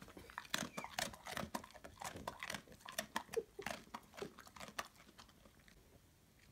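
A dog chewing a crunchy treat: quick, irregular crunches and mouth clicks that stop about five seconds in.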